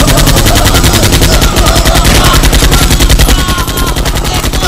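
Rapid, unbroken automatic machine-gun fire, a fast even stream of shots, used as a film sound effect.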